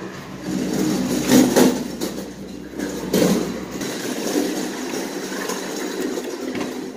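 Wheels of a hotel luggage cart rumbling as it is pushed over a ribbed metal threshold strip and tile floor, with two loud knocks about one and a half and three seconds in.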